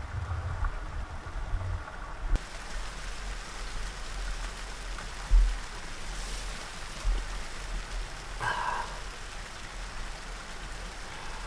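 Falling snow pattering against a tent's fabric, a soft, steady pasa-pasa hiss, with a low rumble underneath.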